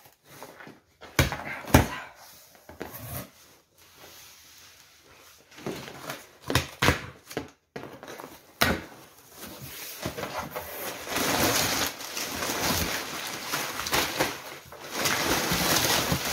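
Cardboard box being opened by hand: a few sharp knocks and scrapes on the cardboard as the tape is cut, then from about ten seconds in a louder, steady rustling and crackling of packing paper being pulled out of the box.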